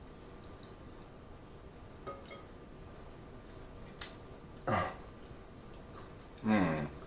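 Close-miked eating of spaghetti: faint chewing and lip smacks, a light click about four seconds in, then two louder mouth noises whose pitch falls, one a little before five seconds and the loudest near the end.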